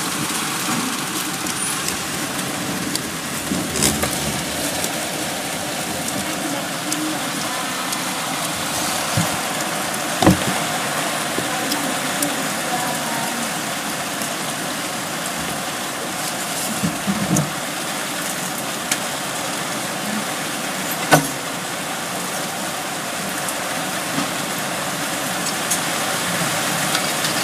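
Heavy wind-driven rain pouring down as a steady hiss, with a few sharp knocks and clatters.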